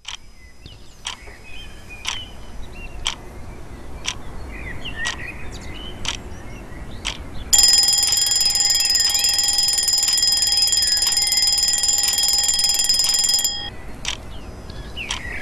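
A clock ticking about once a second, then about halfway through a twin-bell alarm clock starts ringing loudly and steadily for about six seconds before cutting off abruptly.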